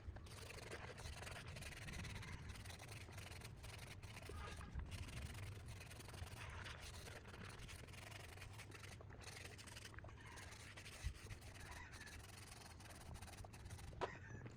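Steady scratchy rubbing against a hard surface, with many small scrapes, as in hand cleaning or sanding work on a part.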